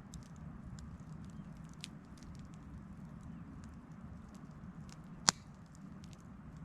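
Wood campfire crackling, with many small scattered pops and one sharp, loud pop about five seconds in.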